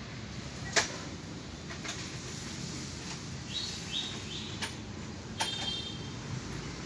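A few sharp clicks and taps over a steady low background hum, the loudest about a second in, with a few short high chirps near the middle.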